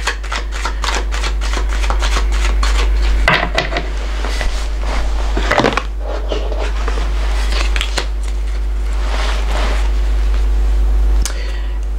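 Tarot cards being handled and pulled from the deck: many small rustles and clicks, with a few sharper card slaps, over a steady low hum.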